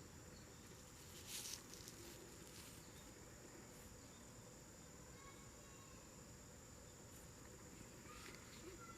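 Faint, steady high-pitched chorus of singing insects, with a brief soft noise about a second and a half in.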